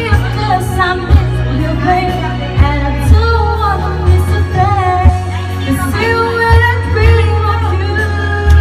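A woman singing karaoke into a microphone over a backing track with a heavy bass line.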